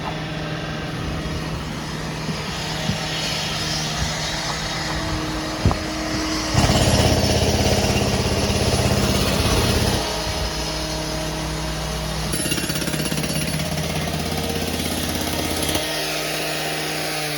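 Power demolition hammer pounding rapidly and continuously, loudest for a few seconds in the middle.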